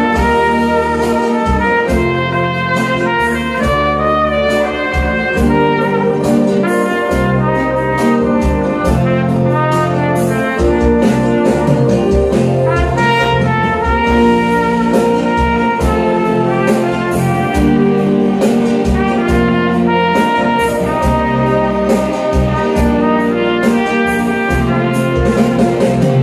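Trumpet playing a slow melody of held and moving notes over a recorded backing track with a bass line and a steady beat.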